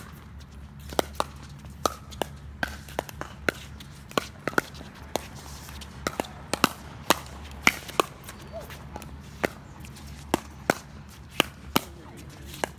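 Pickleball paddles hitting the hollow plastic ball in a fast doubles rally, with the ball bouncing on the hard court: a quick, irregular string of sharp pops, some only a fraction of a second apart.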